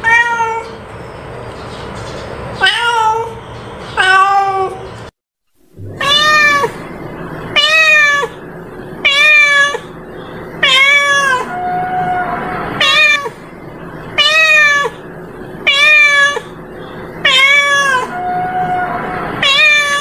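Domestic cat meowing over and over, each meow a short call that rises and falls in pitch. After a brief break about five seconds in, the meows come regularly, about one every second and a half, with a couple of quieter, flatter calls in between.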